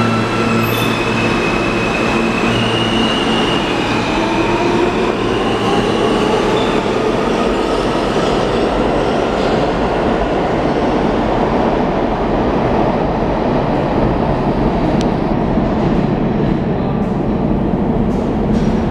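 New York City Subway L train departing. Its electric propulsion whine rises in pitch as it accelerates out of the station, under a steady rumble of wheels on rail.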